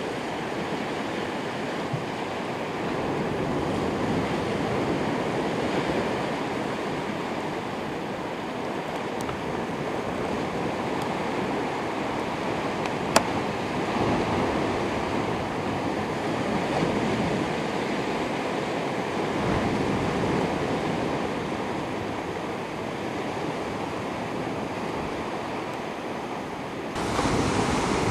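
Sea washing against shoreline rocks, with wind on the microphone: a steady rushing noise. There is one sharp click about halfway through and a sudden jump in level near the end.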